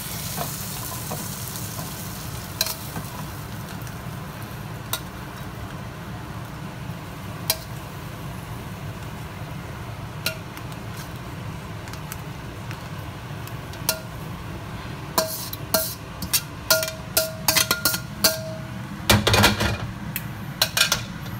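Metal tongs clinking and scraping against a wok and plate as fried lobster pieces are lifted out of the wok onto the plate, over a steady low hiss and faint sizzle from the hot wok. The clinks are sparse at first and come thick and fast in the last third, a few of them leaving a brief metallic ring.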